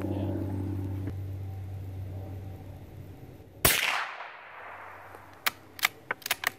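A single shot from a scoped Savage Mark II bolt-action .22 LR rifle about three and a half seconds in, with a trailing echo, followed near the end by a quick run of clicks as the bolt is worked to eject the spent case. A steady low hum fades out before the shot.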